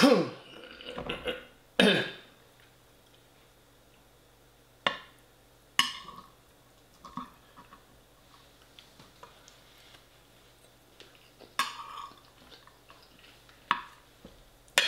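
Metal fork clinking and scraping against a ceramic plate of rice: a handful of separate sharp clinks several seconds apart, some with a brief ring. There are two louder short mouth or throat sounds at the start and about two seconds in.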